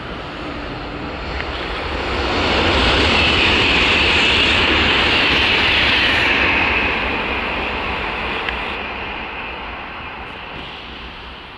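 Italo high-speed train passing at speed: a rushing noise of air and wheels on rail that swells about two seconds in, holds loud for several seconds, then fades as the train moves away.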